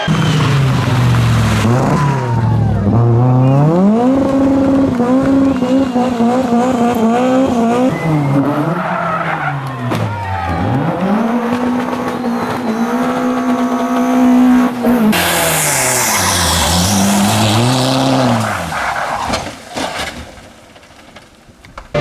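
Rally car engines at full throttle, one car after another, each note climbing as it revs and dropping sharply at gear changes and braking. Around fifteen seconds in there is a burst of hissing tyre and gravel noise. The sound fades to quieter background in the last couple of seconds.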